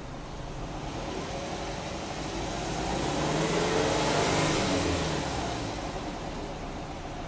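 Subaru Impreza hatchback 15S's flat-four boxer engine, heard from the tailpipe of the stationary car, revved once slowly. The exhaust note climbs in pitch and loudness for about three seconds, peaks about four seconds in, then falls back to idle.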